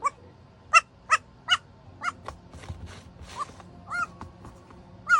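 Four-week-old goat kid making a run of short, high-pitched squeaky bleats, about two a second, a few of them breathier.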